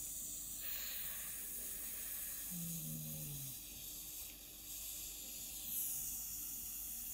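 AirFx caloric air irrigator blowing warm 48 °C air into the ear canal, a faint steady hiss during the right warm irrigation. A brief low hum comes about three seconds in.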